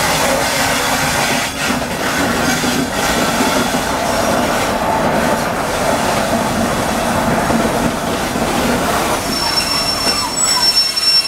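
A train passing close by in the opposite direction, headed by a WAG-7 electric locomotive: a loud rush of rolling wheels and coaches with clattering over the rail joints. A thin, high wheel squeal comes in about nine seconds in.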